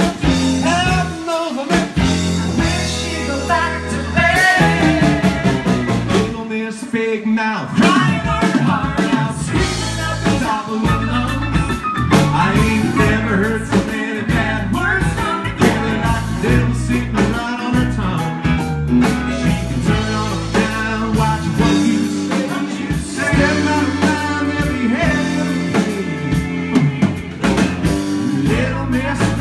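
Country band playing, with drum kit, bass and guitar carrying the song through a passage without sung lyrics.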